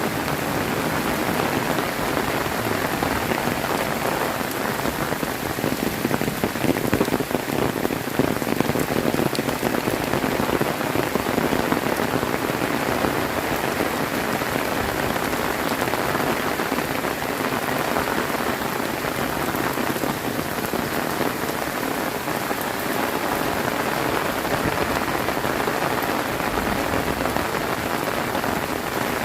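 Heavy rain pouring down and pattering on surfaces, a steady dense hiss of drops.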